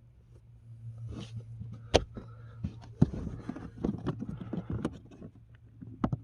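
Irregular clicks, knocks and scrapes of plastic parts being handled and fitted around the cabin air filter housing, the sharpest click about two seconds in, over a steady low hum.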